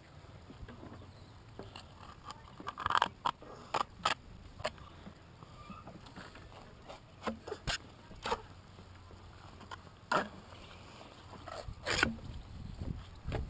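Knife cutting through an eel on a wooden chopping board: irregular sharp taps and knocks of the blade against the wood, about a dozen, clustered around three seconds in and scattered after, over a low steady background rumble.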